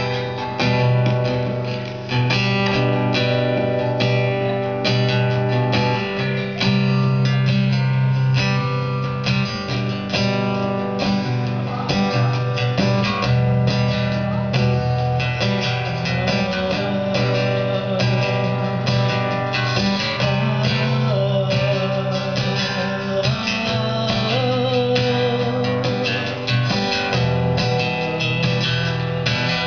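Acoustic guitar strummed in a steady rhythm, with a woman singing over it at the microphone.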